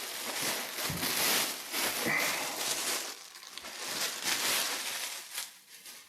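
Rustling and crinkling of packaging being handled, with scattered crackles and light knocks, as an sE Electronics RF-X reflection filter is lifted out of its box and wrapping.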